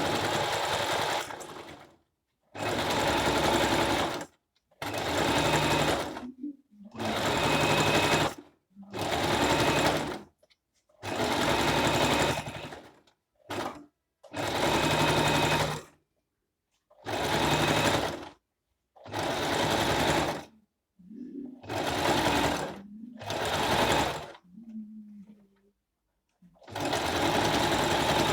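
Singer M3305 sewing machine running a zigzag stitch in short runs of one to two seconds, stopping and starting about a dozen times.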